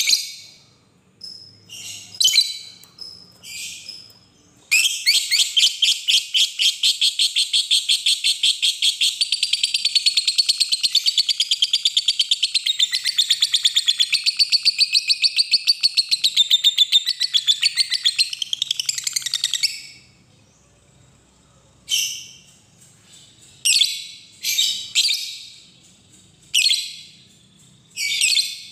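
Fischer's lovebird chattering: a few short, sharp high calls, then about five seconds in a long unbroken run of rapid, evenly repeated notes (the 'ngekek panjang' long chatter) lasting about fifteen seconds, then single short calls again.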